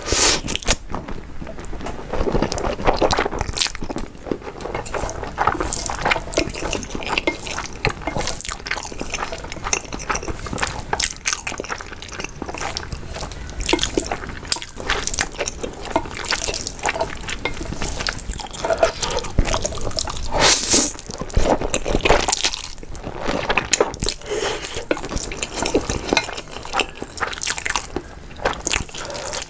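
Close-miked eating of saucy, spicy instant noodles: slurping and chewing, with wet, sticky mouth clicks and smacks coming irregularly throughout.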